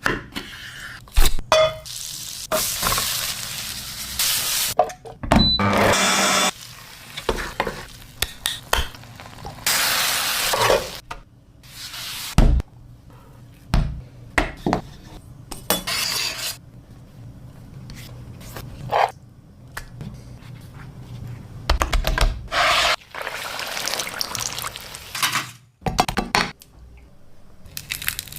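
A string of short kitchen cooking sounds: pots, pans and utensils clattering, stirring, and food sizzling in hot oil, each clip starting and stopping abruptly.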